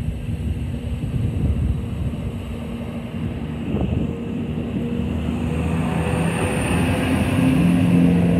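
CrossCountry Class 170 Turbostar diesel multiple unit pulling away and passing close by, its underfloor diesel engines running under power with a steady low drone that grows louder as the carriages go past. A faint rising whine comes in about six seconds in.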